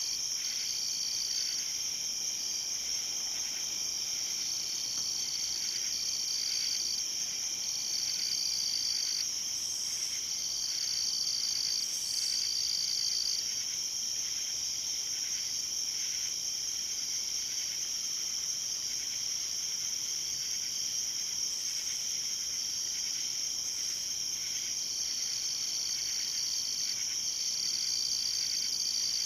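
Chorus of night insects: a steady, unbroken high-pitched trill, with another insect singing alongside in on-and-off stretches of about a second or two.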